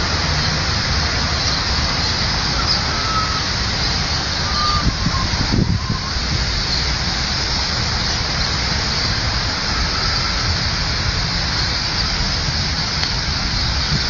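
Fountain water jets spraying up from a pond and splashing back onto the water: a steady, loud rush.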